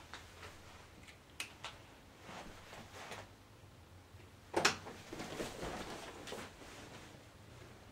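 Light clicks and scuffs of someone moving about at a whiteboard. One louder clack comes about four and a half seconds in, followed by a couple of seconds of rustling.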